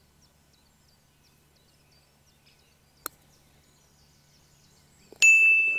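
A putter striking a golf ball once, a short soft click about three seconds in, over faint birdsong. About two seconds later comes a sudden sharp metallic clink that rings on, slowly dying away over a little more than a second; it is the loudest sound here.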